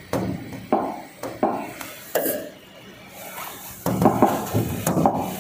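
Scratchy handwriting strokes: a few separate strokes in the first two seconds, a quieter lull, then a quicker run of strokes near the end.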